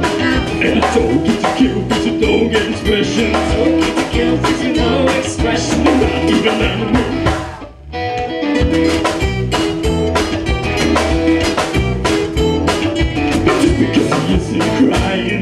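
Live folk-rock band playing: strummed acoustic guitars, electric guitar and a drum kit keeping a steady beat. Just under halfway through, the band stops together for a moment, then comes straight back in.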